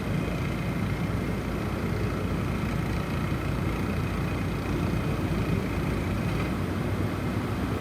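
Snowstorm wind blowing steadily, a low rumbling rush of noise.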